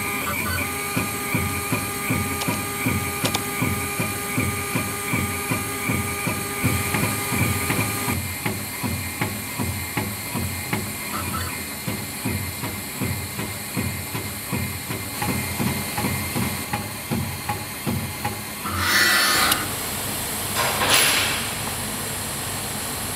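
FARO F1 four-axis CNC engraving machine texturing a metal pen barrel: a rapid, even knocking as the tool cuts, with a high steady whine that stops about eight seconds in. Near the end come two short bursts of hissing.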